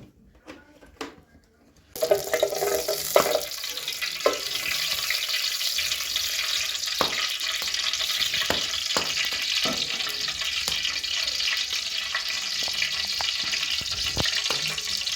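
Food frying in a hot pan: a steady sizzle that starts suddenly about two seconds in, with scattered knocks of a utensil against the pan.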